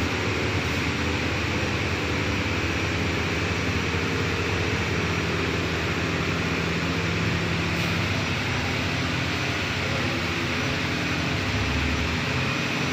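Steady drone of running workshop machinery, a motor-driven unit giving a low hum under a constant hiss.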